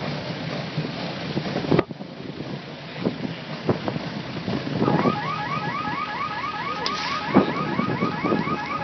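Steady running noise that cuts off abruptly about two seconds in, followed by a few scattered knocks. From about halfway an alarm sounds in rapid rising chirps, about four a second.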